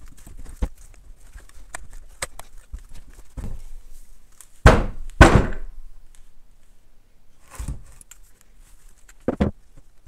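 Aluminium crankcase halves and crankshaft of a 50cc pit-bike engine knocking and clinking on a wooden workbench while the crankshaft is worked out of the case. Two heavy thunks about half a second apart near the middle, with lighter knocks before and after.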